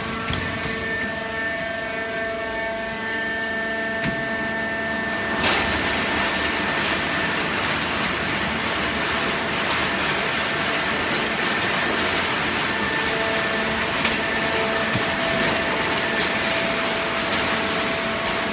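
Hydraulic cardboard baler running: a steady mechanical hiss and hum with faint steady whining tones, getting louder about five seconds in.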